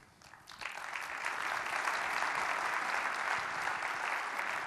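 Audience applauding, building up about half a second in and starting to fade near the end.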